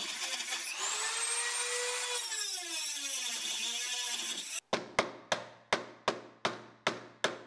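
Power tools working an aluminium plate. First a motor whine rises in pitch and then slides down over a couple of seconds. It is followed by about eight sharp, quickly fading knocks, a little under three a second.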